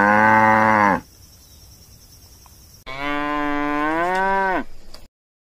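Two cow moos: the first ends about a second in, and a second, longer moo comes near the three-second mark and drops in pitch as it ends.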